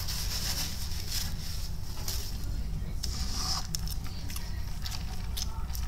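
Steady low electrical hum and hiss from a webcam microphone, with faint mouth noises and a few short clicks from someone eating.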